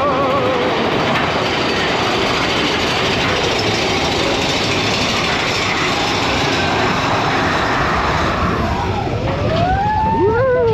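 Big Thunder Mountain Railroad mine-train roller coaster running at speed: a steady loud rush of wind and rattling track noise. Near the end come gliding, whooping rider voices.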